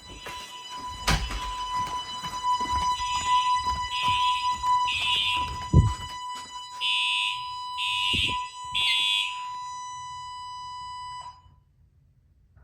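Fire alarm sounding under test. A steady tone is joined a few seconds in by a higher-pitched pulsing sound, roughly once a second, with a few knocks among them. Everything cuts off suddenly about eleven seconds in.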